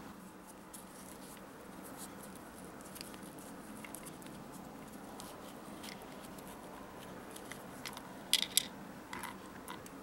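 Faint handling of twine and plastic beads by hand as the string is threaded through a birdhouse roof and knotted, with a few light clicks near the end.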